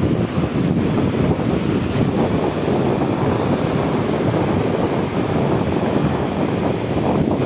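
Wind buffeting the microphone in a steady rumble, with sea waves washing beneath it.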